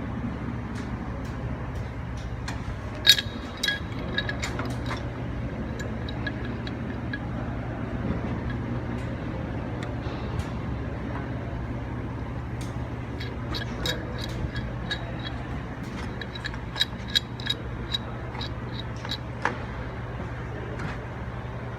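Metal clinks and taps of tools on hydraulic hose fittings as hoses are refitted to a cylinder, over a steady low hum. A sharp clank about three seconds in is the loudest, with a run of quicker clinks near the end.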